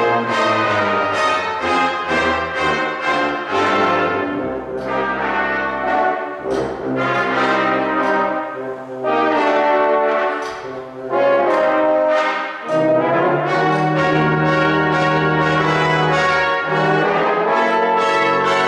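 Brass ensemble of trumpets, trombones, euphonium and tubas playing a jazz-style piece, with quick articulated notes over a bass line; a low sustained bass note comes in about two-thirds of the way through.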